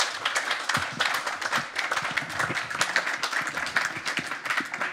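Small audience applauding steadily, many hands clapping at once.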